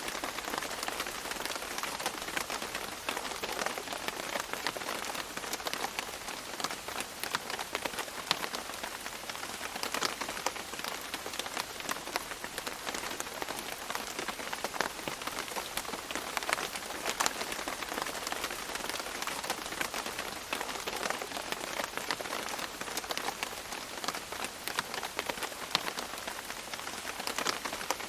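Steady rain dripping and pattering on leaves in a tropical rainforest, a dense stream of close individual drop ticks over a continuous rain hiss.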